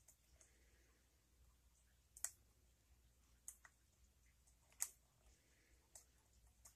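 Faint metal clicks of a lock pick and tension wrench working the pins of an 'Only Pins' challenge lock, four sharp clicks spaced a little over a second apart, the third the loudest.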